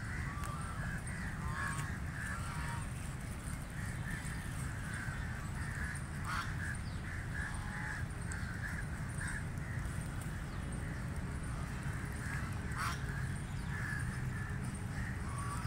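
A flock of white domestic ducks quacking, with many short overlapping calls and two louder ones about six and thirteen seconds in, over a steady low rumble.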